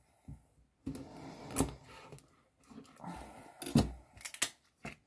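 A knife cutting into a food item wrapped in plastic, with the plastic wrapping rustling and crinkling as it is handled, and several sharp clicks and knocks in the second half.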